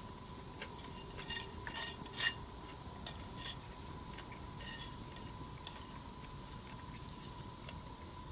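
A metal utensil clinking and scraping in a metal pan during eating, with a cluster of clicks a little over a second in and a few scattered ones later. A faint steady tone runs underneath.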